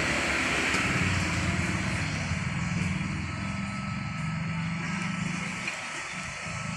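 A motor vehicle engine running steadily, a low hum over traffic noise, that drops away about five and a half seconds in.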